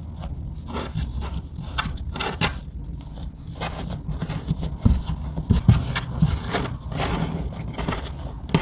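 Hands kneading and squeezing clear slime mixed with crumbled makeup, giving irregular wet squelches, clicks and pops. The loudest pops come about five to six seconds in.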